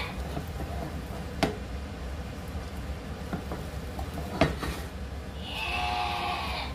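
A utensil scraping and spreading mashed potato in a dish, with two sharp knocks against the dish and a few lighter taps, over a steady low hum. A drawn-out, high, wavering call sounds in the background near the end.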